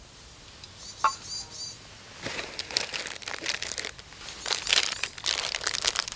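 Plastic snack wrapper crinkling as it is handled, a dense crackle that sets in about two seconds in and carries on, after a single light knock about a second in.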